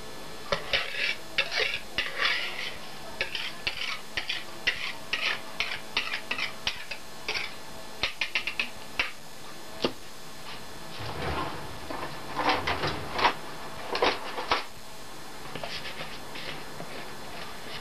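Thin plastic bag crinkling and a plastic mixing bowl clicking as beaten egg and milk is poured from the bowl into the bag: rapid crackles for the first half, then a few heavier rustles and knocks.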